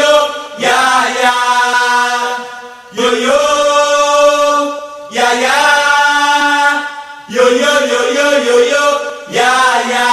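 Music with no beat: long held chords in four phrases of about two seconds each.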